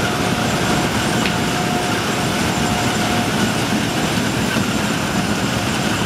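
Potato harvesting machinery running: a steady engine under continuous rattling and clatter, with a faint steady whine that stops about halfway through.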